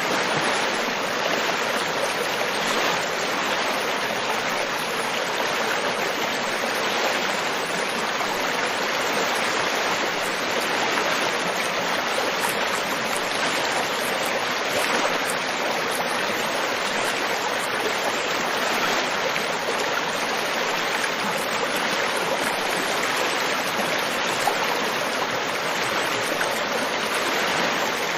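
River water flowing steadily over rocks in a continuous, even rush.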